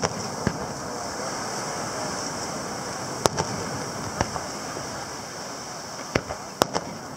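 Distant fireworks shells launching and bursting: several sharp bangs, the loudest about three seconds in and a quick cluster near the end. Behind them runs the steady wash of ocean surf.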